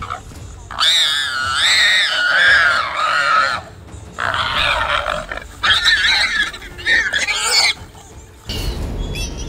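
Warthog squealing in high, wavering distress screams, three long bouts with short breaks between, as it is seized by a lioness.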